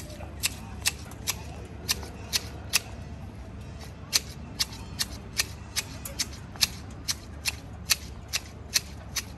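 Manual hedge shears snipping a hedge: a steady run of sharp clicks as the blades close, about two a second.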